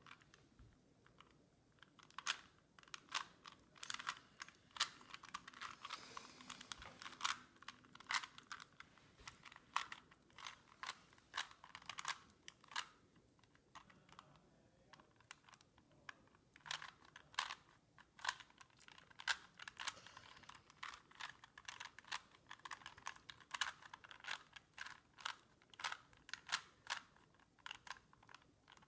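A plastic Rubik's Cube being twisted quickly by hand: irregular flurries of small clicks and clacks as its layers turn. There are short pauses near the start and about halfway through.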